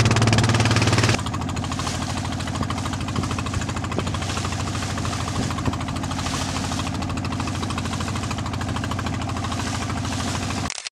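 Small fishing boat's engine running steadily with a rapid knocking beat, dropping in level about a second in and cutting off briefly just before the end.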